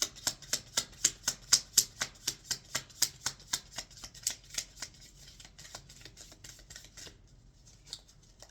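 Oracle card deck being shuffled by hand: a quick, even run of card snaps, about four a second, fading after about five seconds.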